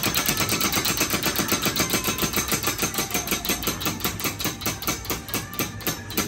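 Halloween animatronic prop giving a rapid, regular mechanical clatter, about seven clicks a second, slowing to about four a second near the end.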